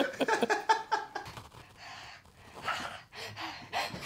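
Men laughing, the laughter fading after about a second into a few quiet, breathy puffs of held-back laughter.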